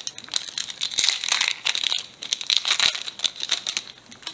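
Foil trading-card booster pack wrapper crinkling and crackling as it is torn open by hand, for about four seconds.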